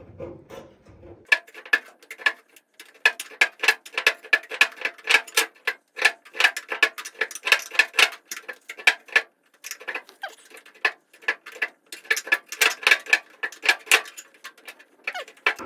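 Rapid, irregular metallic clicking and ticking of a paintless dent repair rod working against the underside of a 1970 Chevelle SS's steel trunk lid, each click ringing briefly in the panel. It starts about a second in, pauses briefly past the middle, then resumes.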